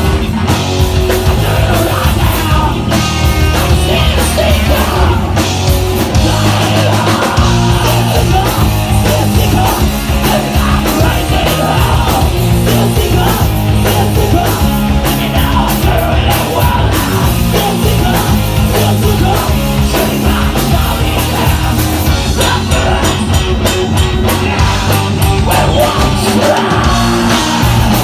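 Live rock band playing loud: electric guitars, electric bass and drum kit.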